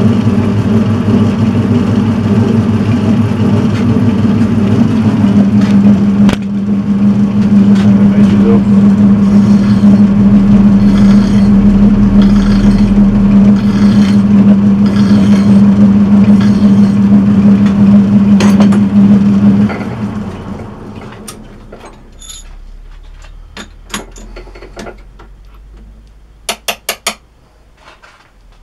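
Metal-turning lathe running steadily under power with a strong hum, switched off about twenty seconds in and winding down to a stop. Light metallic clicks and clinks follow, including a quick run of four near the end.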